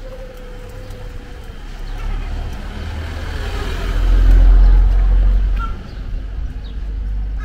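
A road vehicle passing close by: its noise builds over a few seconds, is loudest a little past the middle, then drops away.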